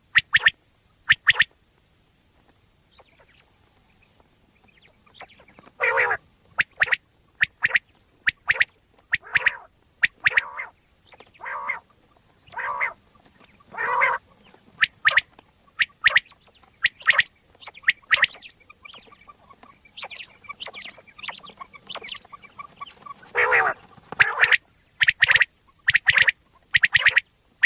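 Common quail calling: short, sharp notes, two near the start, then after a pause of a few seconds a steady run of about two a second. It is a recorded quail call played as a hunting lure.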